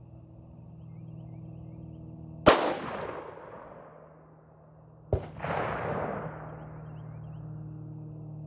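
Two gunshots from a .223 AR-15 pistol with a 4¾-inch micro-gas system, about two and a half seconds apart. The first is the louder, and each is followed by a fading ring. They are picked up through earbud (AirPods) microphones.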